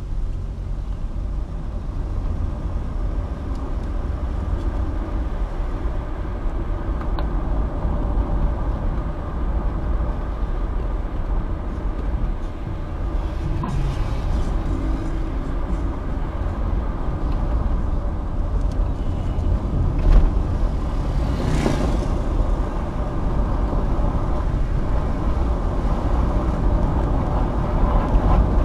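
Car engine and road noise heard from inside the moving car's cabin: a steady low rumble, with a brief sharp knock about 20 seconds in and a short rushing noise just after it.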